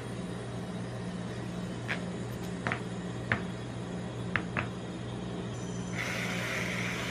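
Steady hum of the rolled ice cream machine's cold plate, with a few light clicks of metal spatulas and tongs against the plate and paper cup. Near the end, a hiss of whipped cream sprayed from an aerosol can onto the ice cream rolls.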